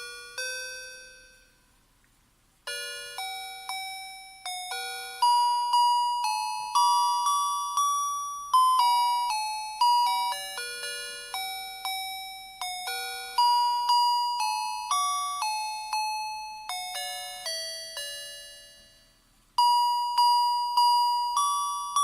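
Electronic melody chip of the kind built into musical Christmas lights, playing a carol tune in tinny, beeping notes, each one starting sharply and dying away. The tune stops for a moment about two seconds in and again near the end, then starts over.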